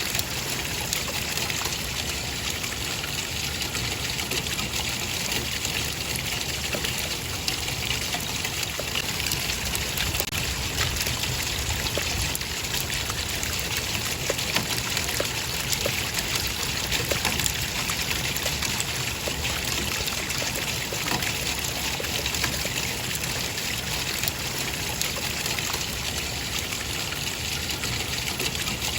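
Running water trickling and splashing steadily, a continuous even rush with many small drips and splashes.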